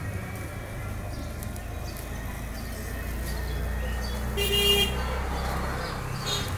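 A vehicle horn toots once, briefly, about four and a half seconds in, over the steady low rumble of a running engine in nearby road traffic.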